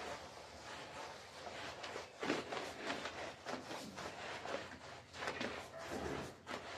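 Stiff-bristled push broom scrubbing a wet, soap-lathered rug in repeated back-and-forth strokes, the bristles rasping and swishing through the foam; the strongest stroke comes about two seconds in.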